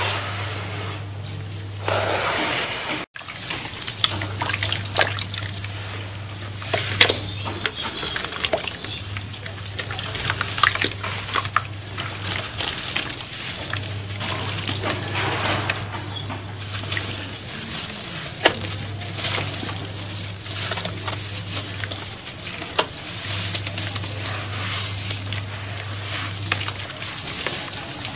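Hands sloshing and squelching in a tub of water, crumbling wet sand-and-cement lumps into a gritty slurry, with many small splashes and wet crackles.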